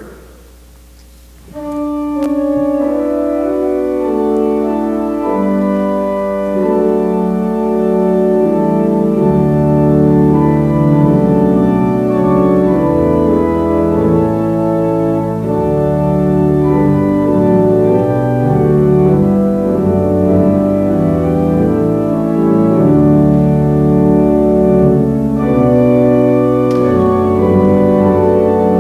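Organ playing slow, sustained chords that change in steps, starting about a second and a half in. Deep bass pedal notes join at around nine seconds.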